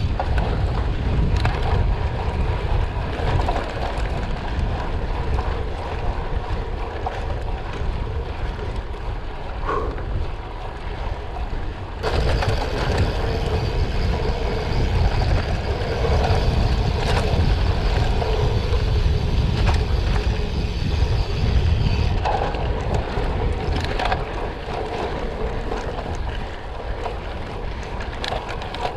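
Specialized Diverge gravel bike rolling over a gravel road: tyres crunching over loose stones with scattered small clicks and rattles, under a steady rumble of wind on the microphone.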